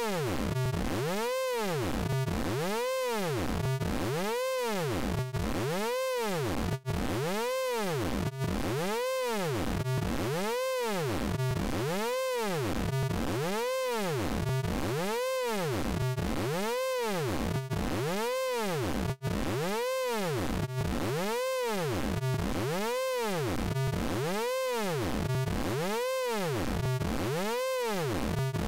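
Synthesized tone from the Orange Vocoder plug-in: a pitched, many-harmonic sound that sweeps up and back down about once a second in a steady repeating cycle, with a couple of very brief dropouts.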